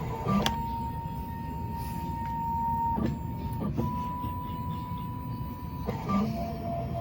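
Miracle A9 key cutting machine's motors running through an automatic calibration pass: a steady whine that stops and restarts at a slightly different pitch, with a click at each change, about half a second in, at three seconds and near six seconds.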